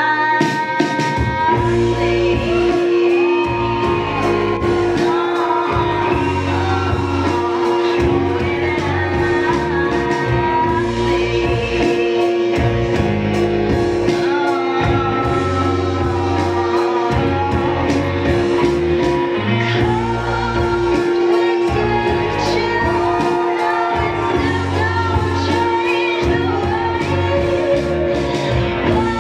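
Music with a singer over a regular bass beat and a held tone underneath, played loud.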